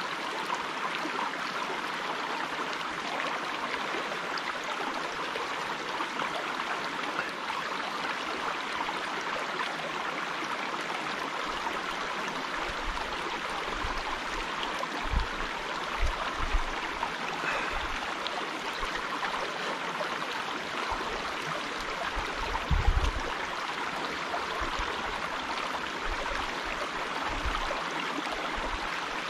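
Small mountain creek with moving water, a steady rush and trickle of flowing water. A few short low thumps break in about halfway through and again near two-thirds of the way.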